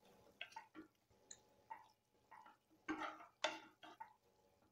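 Wooden spatula stirring cooked toor dal into brinjal pieces in a nonstick kadai: faint, irregular scrapes and soft taps against the pan, a little busier about three seconds in.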